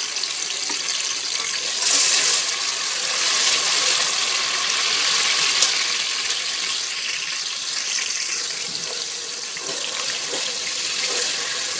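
Onion, garlic, cumin and ginger paste sizzling in hot oil with whole spices, as a steady hiss, stirred with a wooden spatula; a little louder about two seconds in.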